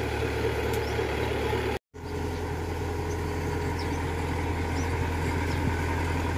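Tracked rice combine harvester's engine running steadily. The sound cuts out for an instant about two seconds in, then a harvester's engine goes on at a slightly different pitch as it drives along on its tracks.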